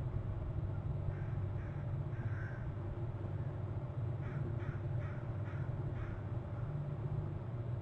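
Bird calls: a few soft calls about a second or two in, then a run of five short harsh calls a little under half a second apart, over a steady low hum.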